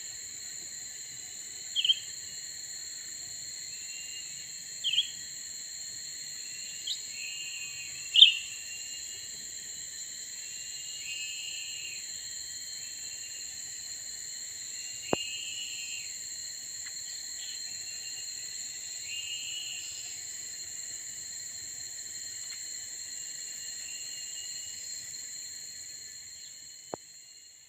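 Short chirping calls and brief call phrases of a cucak ranting recurring every few seconds, over a steady high-pitched insect drone. A couple of sharp clicks stand out, and the whole sound fades out near the end.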